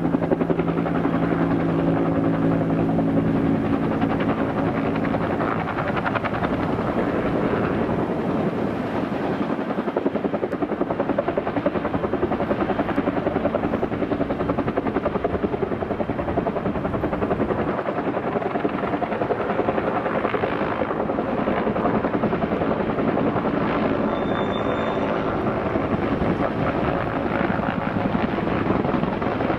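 Air ambulance helicopter's rotor beating steadily in rapid, even chops. A steady engine hum under it fades after the first few seconds.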